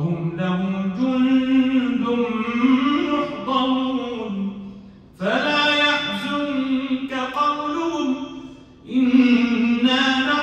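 A solo man's voice reciting the Quran in melodic tajweed chant, with long held notes that glide in pitch. The voice breaks off twice for a breath, about halfway through and near the end.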